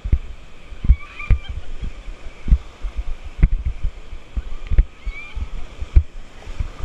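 Whitewater rapids rushing around an inflatable raft, heard through a camera fixed to the raft, with irregular dull thumps about once a second as water and the bouncing raft knock against the camera mount.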